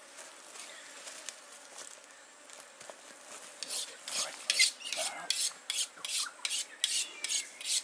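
Knife being honed on a sharpening steel: quick, even scraping strokes, about three a second, starting about three and a half seconds in.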